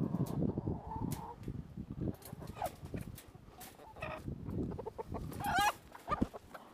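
Chicken being caught and held by hand, giving short squawks and clucks, with a loud wavering squawk about five and a half seconds in. Rustling from handling and a few sharp clicks run alongside.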